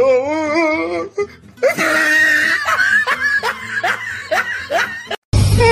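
Laughter over music: a wavering, wobbling laugh at first, then a run of short repeated laughs.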